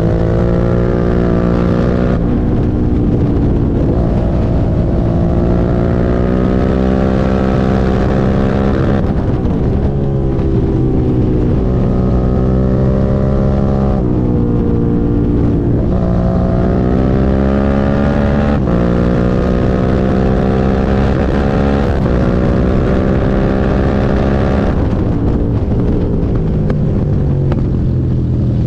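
Suzuki SV650's V-twin engine pulling under way. Its note climbs, then drops sharply, five or six times over, like a rider accelerating and changing gear.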